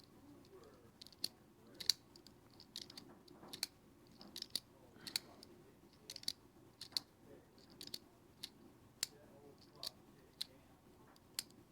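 CJRB Kicker recoil-lock folding knife clicking as it is handled: a string of short, sharp clicks at irregular spacing, roughly two a second.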